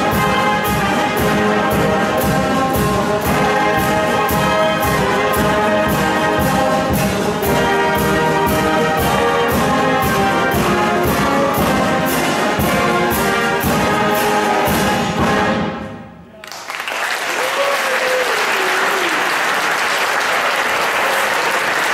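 School wind band (clarinets, flutes, saxophones and brass) playing a piece with a steady beat, which stops about sixteen seconds in. Audience applause follows.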